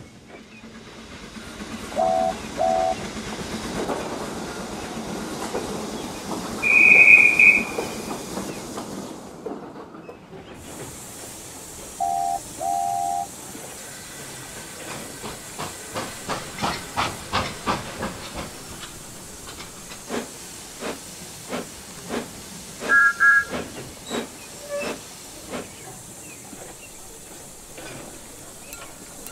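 Steam locomotive sound effects: hissing steam, two short low whistle toots, a loud shrill whistle, then two more low toots. Later a quick run of sharp knocks and a short two-note higher whistle.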